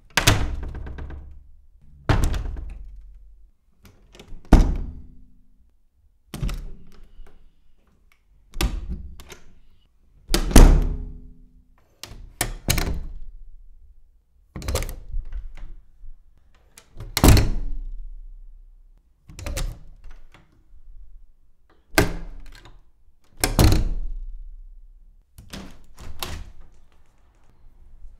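Different doors being opened and shut one after another: a solid thunk of a door closing about every two seconds, each dying away over about a second, some with a smaller click of the latch just before.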